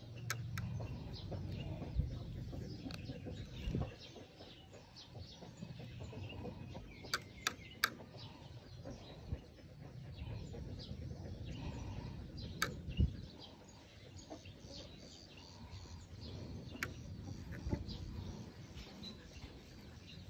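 Faint chickens clucking and small birds chirping, with low rustling and a few sharp clicks, three in quick succession about halfway through and one more a few seconds later.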